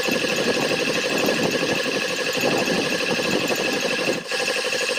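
Old belt-driven piston air compressor running steadily with a fast, even pulsing, pumping its tank up toward the 100 PSI cut-out newly set on its pressure switch. The sound dips briefly about four seconds in.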